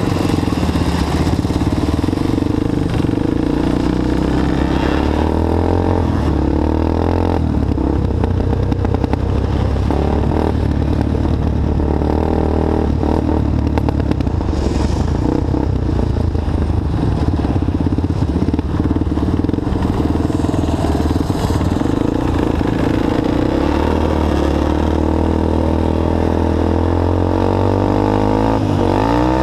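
Quad bike engine heard from on board, running under throttle on a snowy track, its pitch rising and falling as the throttle is worked. Near the end the revs climb sharply.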